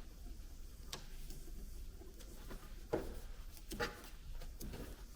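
Faint handling noise of Shumoff Specific anti-squeak fabric tape being wound around a car's wiring harness: soft rustles and a few light clicks, the two clearest about three and four seconds in.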